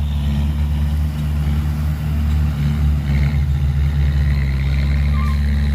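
Heavy diesel engine of an earthmoving machine running steadily with a deep drone. A faint short beep comes near the end.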